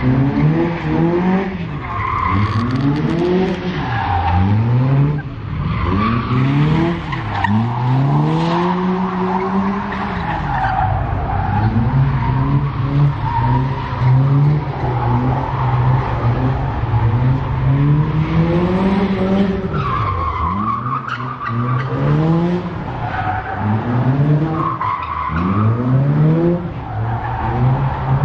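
Car engines revving up and falling back many times in quick succession, over a steady engine hum, as cars are driven hard.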